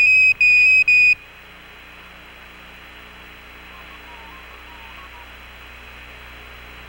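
High beeps of about 2.5 kHz on the Apollo 15 air-to-ground radio loop, typical of the Quindar tones that keyed NASA's transmissions, sounding three times in about the first second. They give way to a steady radio hiss.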